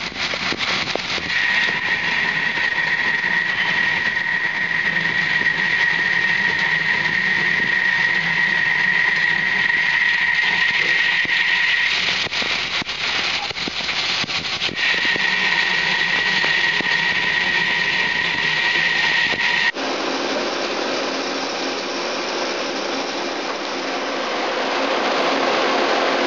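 Daewoo Puma 10HC CNC lathe turning a part under flood coolant: a steady high whine over the hiss of the coolant spray. The whine breaks off for a couple of seconds about halfway through, returns, then stops about 20 s in, leaving a lower, steady machine hum.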